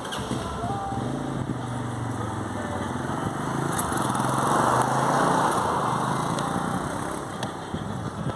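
A vehicle's engine runs steadily while driving. About halfway through, a rush of noise swells and then fades.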